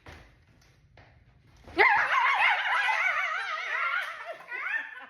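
A person's voice making a silly, high, warbling sound with a fast wobble in pitch, starting about two seconds in and lasting about two and a half seconds. Short rising giggle-like sounds follow near the end.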